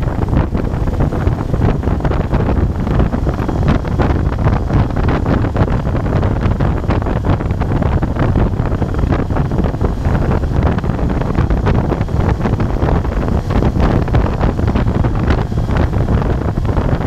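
Moto Guzzi Bellagio's air-cooled V-twin running steadily at cruising speed, largely covered by wind buffeting the microphone.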